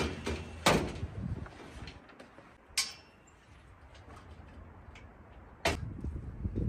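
Three sharp knocks and clatters, about a second in, near the three-second mark and near the end, with low rustling and scraping between them: junk and debris being handled while a shabby shelter is tidied up.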